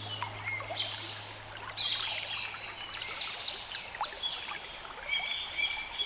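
Songbirds chirping with short, downward-sweeping calls over a steady trickle of running water.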